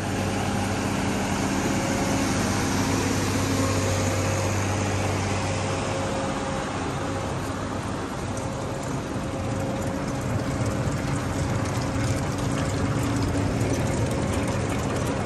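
Tractor engines running under steady load while a forage wagon unloads chopped triticale silage onto a silage bagger's conveyor: a steady engine hum over a continuous wash of machinery noise. The lowest part of the hum fades a few seconds in.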